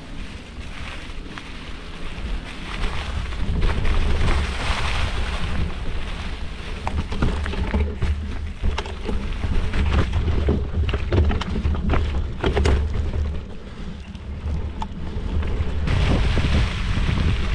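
Mountain bike's knobby tyres rolling over a dirt singletrack trail, heard through heavy wind rumble on a handlebar-mounted action camera, with sharp rattles and knocks from the bike over bumps through the middle.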